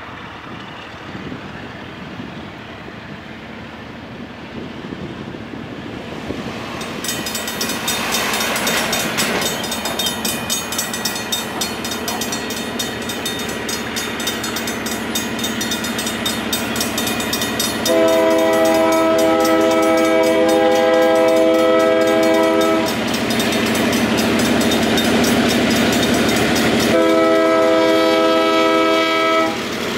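Railroad grade-crossing bell starts ringing rapidly about seven seconds in as the crossing activates, and keeps ringing. The approaching EMD SW1500 switcher locomotive blows its horn, a long blast about eighteen seconds in and another near the end, over a growing low rumble of the train.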